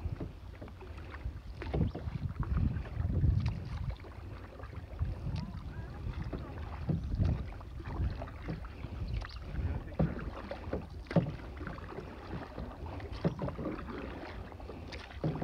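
Canoe paddling: a paddle dipping and pulling through the water in irregular strokes, with short splashes and knocks, over a low rumble of wind on the microphone.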